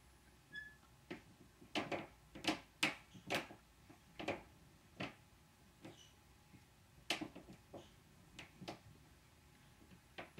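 Footsteps of people walking on the floor of the apartment above, heard through the ceiling as an uneven series of knocks and thuds. The loudest run comes about two to three seconds in, with another about seven seconds in.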